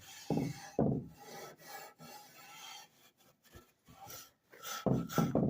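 Hand sanding of the corroded metal housing of an old Bristol chart recorder with sandpaper and a Scotch-Brite pad: irregular rasping rub strokes scrubbing off corrosion, heavier near the start and again near the end.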